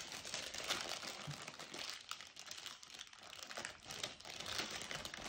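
Crinkly plastic toy packaging rustling and crackling irregularly as it is pulled open by hand.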